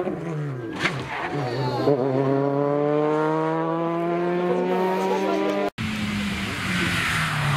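Peugeot 208 rally car's engine accelerating away, its note climbing steadily for several seconds in one gear. The sound cuts off abruptly near the end, and another rally car's engine is then heard approaching.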